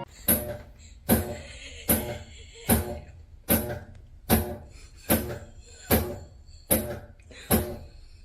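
Steady beat of sharp percussive thumps, about one every 0.8 seconds, ten in all, each with a short ring.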